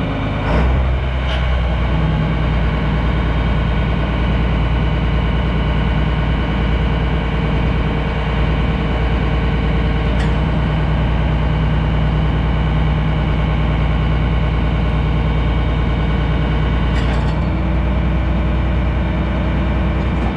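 John Deere 4555 tractor's six-cylinder diesel engine running steadily while its hydraulics unfold the wings of a John Deere 635 disk harrow, with two brief sharp clicks, about halfway through and again a few seconds before the end.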